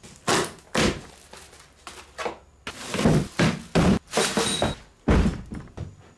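A new small engine being unpacked: cardboard box flaps and plastic wrapping rustling and scraping in a string of short bursts, with a few thuds as it is handled.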